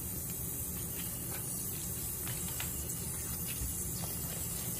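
A steady low rushing hiss, with a few faint light clicks over it.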